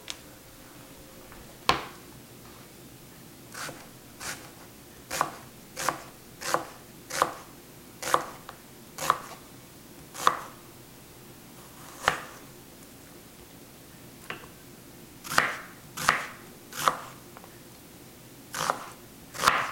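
Chef's knife slicing onions on a cutting board: a string of separate sharp cuts, irregularly spaced about half a second to a second apart, with a few short pauses.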